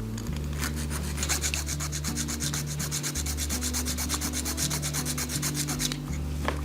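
A hand file rasping on the metal screw posts of a die-cast toy car, in rapid, even back-and-forth strokes about seven a second, stopping shortly before the end.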